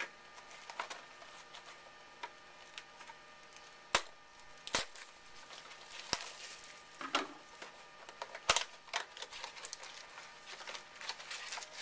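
2011 Topps Finest mini box and foil card pack being opened and handled: soft crinkling and rustling of wrapper and packaging, broken by several sharp clicks and snaps that are clearest around the middle.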